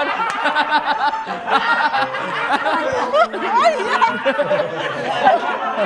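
Several people laughing and chuckling at once, with bits of chatter mixed in.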